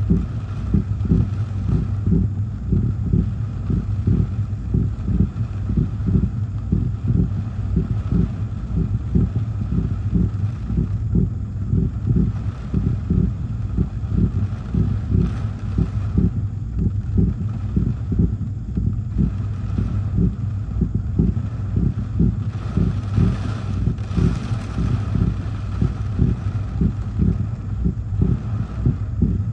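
Gusty storm wind buffeting the microphone in a continuous, rapidly fluttering low rumble, with a louder rush of hiss about three-quarters of the way through.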